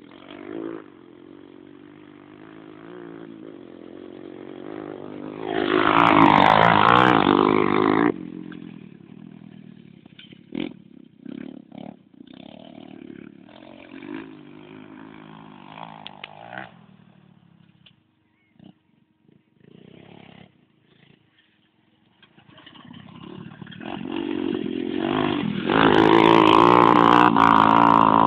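Quad bike (Bashan ATV) engines revving as the quads ride the dirt track. There are two loud close passes, about six seconds in and again over the last few seconds, with quieter, distant running between that almost fades out around two thirds of the way through.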